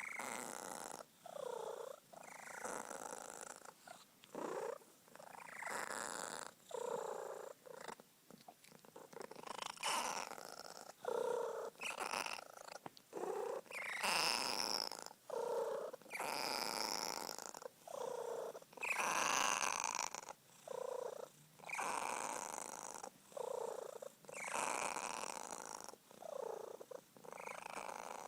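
Sphynx cat purring loudly while happy, the purr rising and falling with each breath, with a squeaky note that falls in pitch at the end of many breaths, repeating every second or two.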